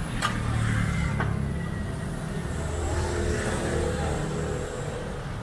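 A motor vehicle's engine runs close by, a low rumble that is the loudest sound. Under it is the sizzle of bananas deep-frying in a large wok of bubbling oil, with two sharp clicks in the first second or so.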